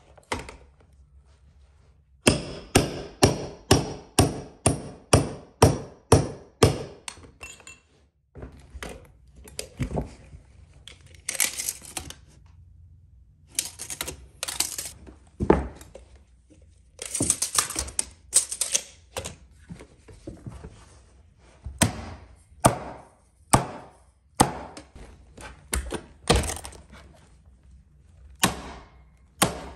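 Carpet tools fastening a stair runner. First comes a quick run of sharp strikes, about two to three a second for several seconds, then slower, irregular strikes.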